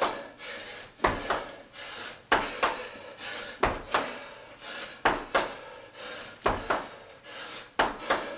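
Sneakered feet landing on a hard floor during repeated jumps: a quick pair of thuds, one foot just after the other, about every 1.3 seconds.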